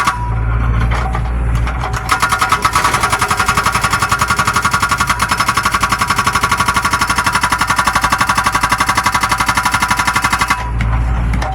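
Excavator-mounted hydraulic breaker hammering in a rapid, even rhythm over the excavator's low engine rumble. The hammering starts about two seconds in and stops near the end, leaving the engine running.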